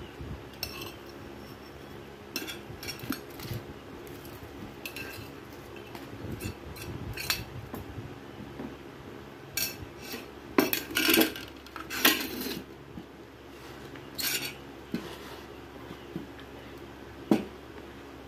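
Metal cutlery clinking and scraping against a plate and a paper noodle cup in scattered strokes. The loudest clatters come about ten to twelve seconds in, as the plate is handled.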